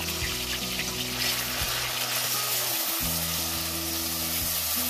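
Garlic and onion paste with turmeric sizzling in hot oil in a cooking pot, over soft background music with held low notes.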